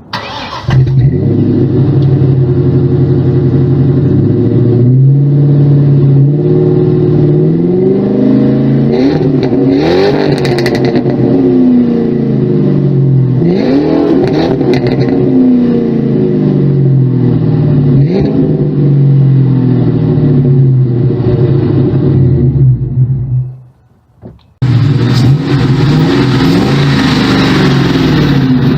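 Ford Mustang GT 2V's 4.6-litre V8 running through Flowmaster 40 series mufflers while being driven, its exhaust note rising and falling repeatedly as the revs climb and drop. The sound cuts out briefly near the end, then returns with a loud rushing noise over the engine.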